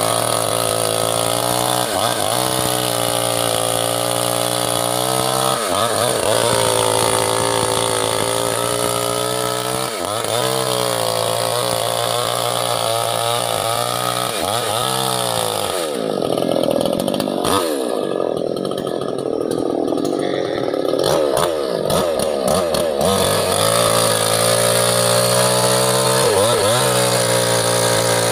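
Small two-stroke mini chainsaw engine running at high revs and easing off again and again, its pitch dipping every few seconds. From about sixteen to twenty-three seconds in it drops lower and runs rougher before picking back up.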